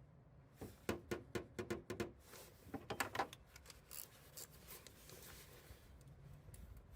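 Irregular metallic clicks and clinks of hand tools being handled, a socket and adapter being fitted together, followed by a couple of seconds of rustling.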